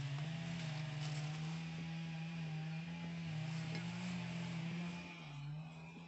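Background music: a low sustained drone that holds one pitch, then steps down and back up twice.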